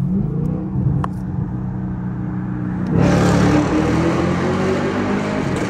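Straight-piped Chevrolet Camaro SS's V8 exhaust, heard from the cabin with the window down: a short rev rising at the start, then a steady drone, then about three seconds in a sudden louder surge as the car accelerates, its pitch climbing, echoing inside the tunnel.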